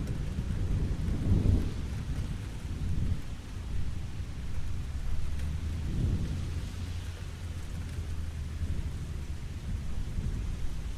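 Steady rain falling, with thunder rumbling low underneath; the rumble swells about a second in and again around six seconds.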